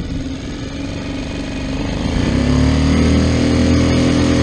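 Small outboard motor on a small fishing boat, idling, then throttled up about two seconds in and settling into a louder, steady higher-speed run.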